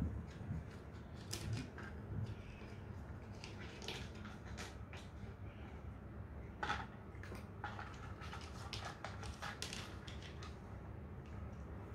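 A cardboard toilet-roll food puzzle scraping and tapping on a wooden floor as a cat noses and paws at it, giving irregular light clicks and rustles.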